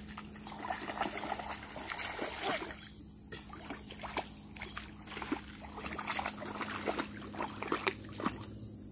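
A small child's sneakered feet splashing through a shallow creek as he wades, in uneven steps that come in clusters.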